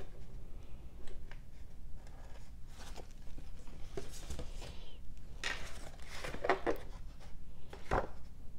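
Paper coupons and glossy leaflets rustling and crinkling as they are handled and set down, coming in irregular spurts, busiest about five to six seconds in, with a sharp crackle near the end.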